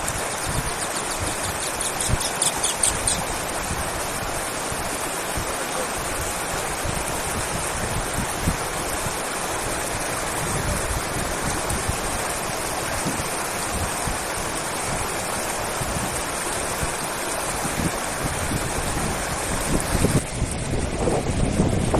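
Steady rushing of fast-flowing river water. About two seconds in there is a brief run of rapid high-pitched clicking.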